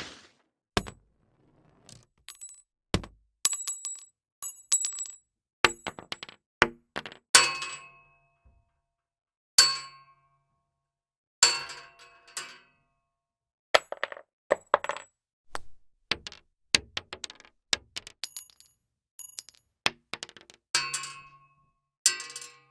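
A run of separate metal sound effects: sharp clanks, clinks and clicks of metal, one after another with short gaps between them. Some ring briefly on a high note.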